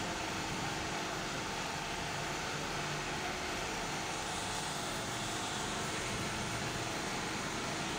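Steady hum of a running fan-type machine, even throughout, with faint steady tones in it and no distinct knocks or clicks.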